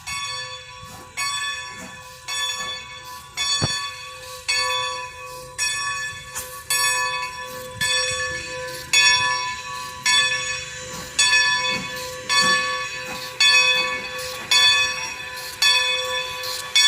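Steam locomotive bell of Great Western 90, a 2-10-0 decapod, ringing steadily about once a second as the engine moves. The strokes grow louder about halfway through.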